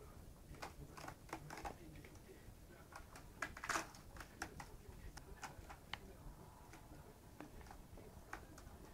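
Kittens' claws scrabbling on a plush and sisal cat tree: irregular light clicks and scratches, with one louder rustling scratch about three and a half seconds in.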